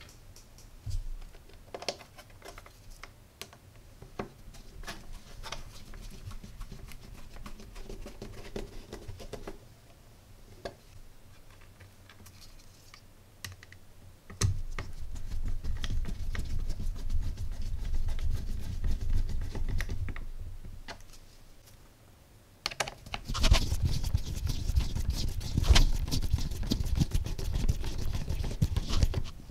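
Small screws being driven by hand with a screwdriver into a 3D-printed plastic case, with clicking and scraping of the driver and handling of the plastic parts. Scattered clicks at first, then louder, denser stretches about halfway through and near the end.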